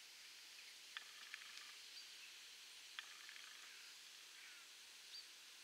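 Faint bird chirps, short and sharp, about every two seconds, with a couple of brief high whistles, over a steady low hiss. No tractor engine is heard.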